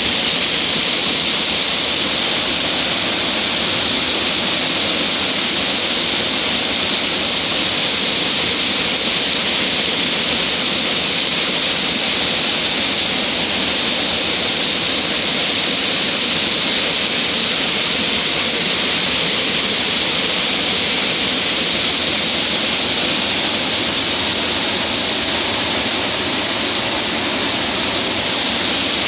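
Steady rushing of pouring water from an outflow, an even hiss that does not change.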